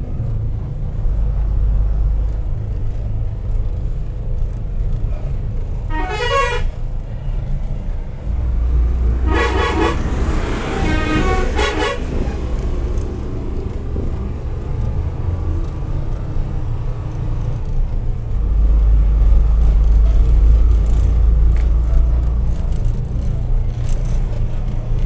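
Truck's diesel engine running steadily, heard from inside the cab, with a horn sounding twice: a short gliding blast about six seconds in and a longer wavering one from about nine and a half to twelve seconds. The engine gets louder in the last third.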